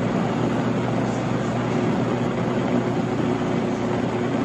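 Countertop blender motor running steadily, churning a thick, jar-full load of chopped onion, peppers, celery and garlic with vinegar into sofrito.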